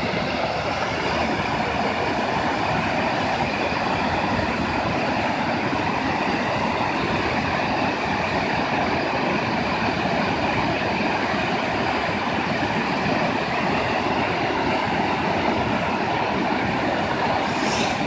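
River water pouring over a low waterfall and rapids: a steady, unbroken rushing of whitewater.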